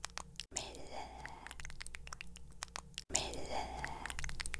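Wet tongue and mouth clicks, licks and smacks made close to a microphone, with a breathy whisper-like hiss. The same short stretch repeats, cut off abruptly about half a second in and again about three seconds in.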